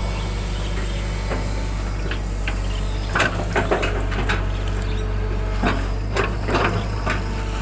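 Excavator's diesel engine running steadily, with a cluster of short knocks and scrapes from the working bucket starting about three seconds in and lasting several seconds.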